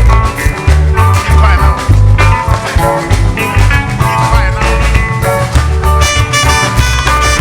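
Church band playing a Yoruba praise song between sung lines: heavy pulsing bass with drums and steady keyboard or guitar notes above it.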